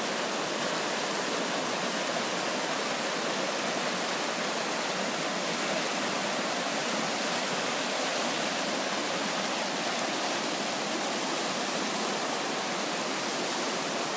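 Swollen spring river running higher than normal, its fast whitewater rushing over rocks in a steady, unbroken wash of noise.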